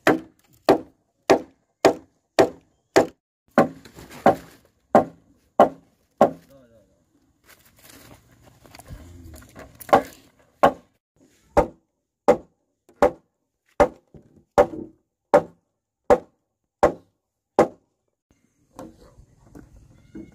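Steady blows of a tool striking wood, a little under two a second. The blows pause for a few seconds midway, then resume at a slightly slower pace.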